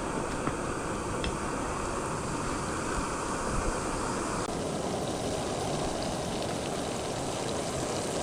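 Floured fish pieces sizzling steadily in hot olive oil in a frying pan, with a few faint pops and crackles, under wind on the microphone.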